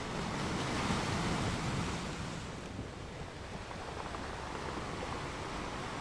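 Ocean surf washing in over rocks, a wave surging up about a second in and easing off by about three seconds.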